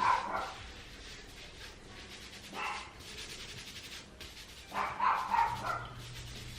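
Pet dogs barking in short bursts: one just at the start, one about two and a half seconds in, and a cluster of barks around five seconds in. The barking is set off by the garage door going up.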